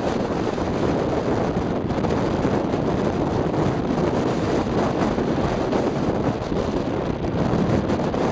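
Strong wind buffeting the microphone on a soaring slope: a loud, steady low rumble that gusts slightly, with no engine or other distinct sound.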